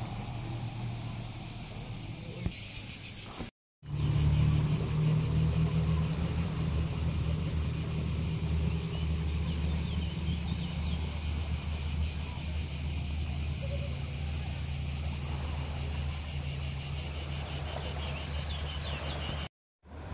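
Cicadas shrilling steadily, a fine rapid pulsing held on one high pitch. A strong low rumble joins them about four seconds in, and the sound drops out briefly twice.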